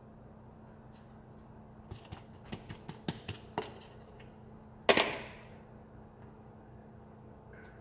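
Kitchen handling sounds over a foil-lined baking sheet: a run of light clicks and taps as a plastic bowl is handled and cheese is sprinkled, then about five seconds in one loud knock with a short rustle that quickly fades. A steady low hum runs underneath.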